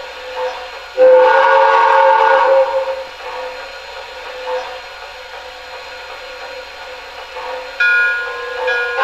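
The sound system of an MTH two-rail O-scale Boston & Maine steam locomotive, standing still, sounding its whistle: a loud, breathy multi-tone blast about a second in lasting nearly two seconds, then a second, cleaner chord blast near the end, over the engine's steady standing background sounds.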